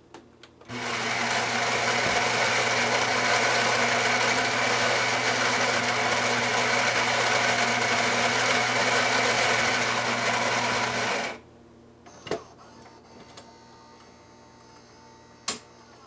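Gaggia Brera espresso machine's built-in ceramic burr grinder grinding coffee beans: a steady motor whirr that starts just under a second in, runs for about ten seconds and cuts off suddenly. A couple of faint clicks from the machine follow.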